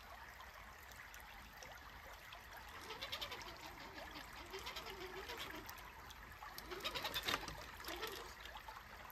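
Creek water trickling, with faint, wavering whines that come and go in short spurts and a louder moment about seven seconds in.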